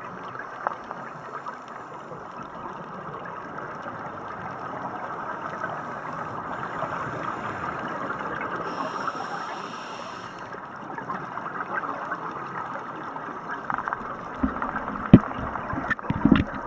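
Underwater ambience picked up by a camera in its housing: a steady hiss of moving water with some gurgling. A few sharp knocks come near the end, the loudest about a second before it ends.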